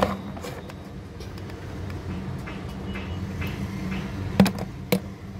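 A steady low hum, with light clicks of dry roasted clay chunks knocking together as they are handled, the two sharpest about four and a half and five seconds in.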